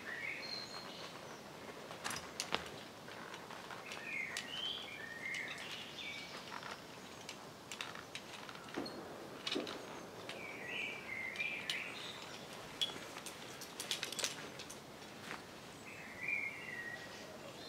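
A songbird singing short warbling phrases, repeated four times a few seconds apart, over a quiet outdoor background, with scattered sharp clicks and knocks.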